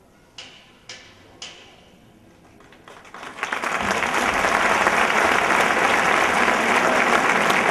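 Three sharp cracks about half a second apart, then a crowd breaks into loud, sustained applause from about three seconds in.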